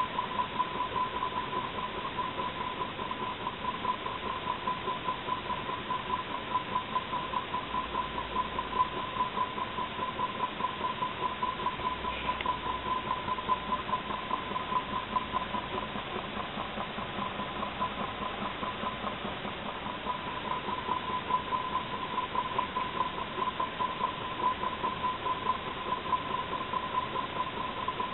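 Small homemade Stirling engine with clay parts running steadily over a flame, giving a fast, even mechanical pulsing over a steady hiss.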